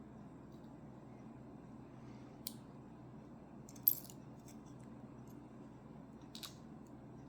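Three short, sharp metallic clicks, the loudest about the middle, as small metal lock parts and tools are handled while a pin-tumbler lock is taken apart, over a steady low hum.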